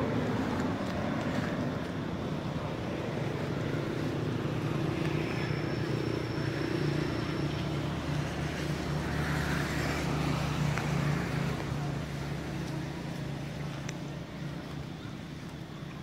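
Steady low hum of an engine running, swelling a little mid-way and fading over the last few seconds.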